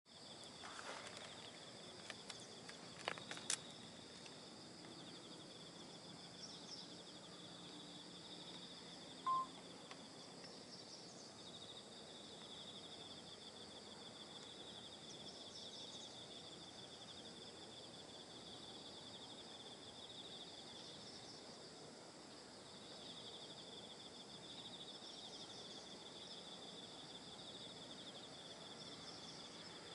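Faint, steady chirring of insects, with a few sharp clicks about two to three seconds in and one brief beep just after nine seconds.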